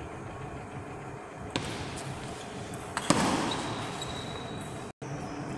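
Table tennis ball knocking sharply twice, about a second and a half apart, once about a second and a half in and again about three seconds in.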